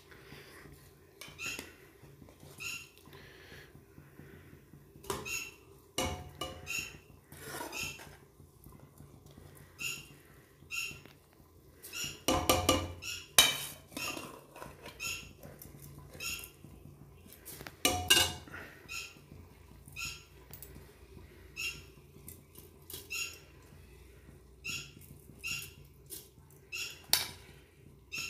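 Metal spoon clinking and scraping against a steel bowl and an aluminium pressure cooker as washed rice is scraped into the cooker: short, irregular knocks and clinks, with a few louder clatters around the middle.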